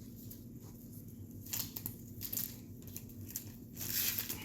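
Trading cards and their foil pack wrappers being handled: several short rustling, crinkling sounds, the longest and loudest near the end, over a faint steady low hum.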